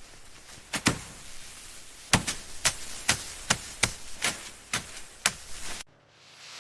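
A series of about ten sharp knocking or chopping strikes, roughly two a second and unevenly spaced, over a steady hiss; they stop about five seconds in.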